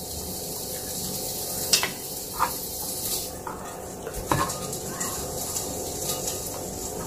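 Food sizzling in a frying pan, a steady hiss with a few short knocks of a utensil against the pan.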